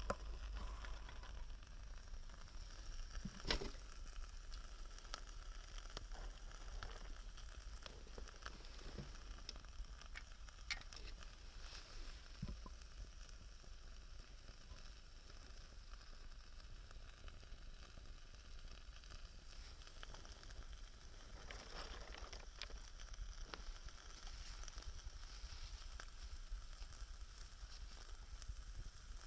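Small wood fire burning with a faint steady hiss and scattered sharp pops, one louder about three and a half seconds in.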